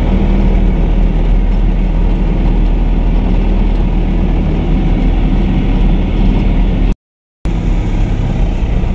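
Engine of a small loaded goods carrier running steadily, heard from inside the cab with road noise. The sound drops out for about half a second near the end, then carries on.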